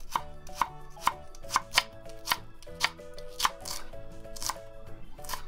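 Kitchen knife slicing myoga into thin strips on a wooden cutting board: a steady series of crisp cuts, each ending with the blade tapping the board, two or three a second.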